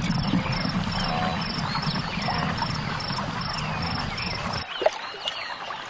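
Wildlife ambience: a dense low rumble with scattered short animal and bird calls over it. The rumble cuts off suddenly about four and a half seconds in, leaving only fainter calls.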